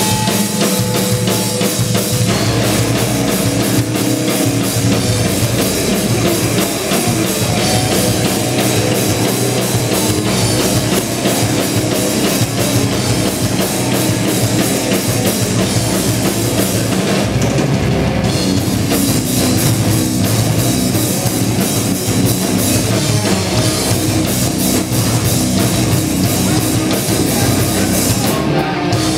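A metal band playing live at full volume: distorted electric guitars and bass over a drum kit with constant cymbals.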